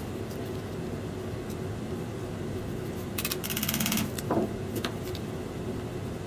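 Light clicks and taps of a hand-made hatchet and its handle scales being handled on a wooden workbench. About three seconds in comes a fast rattle lasting about a second, followed by a short falling squeak.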